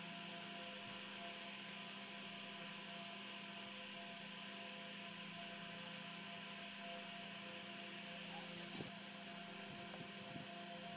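A steady hum with hiss, several fixed tones held at once without change, and a few faint short knocks near the end.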